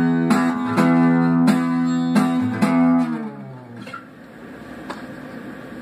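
Guitar strumming the song's closing chords, about five strokes half a second apart, then the last chord rings out and fades from about three seconds in. Two faint knocks sound in the dying tail.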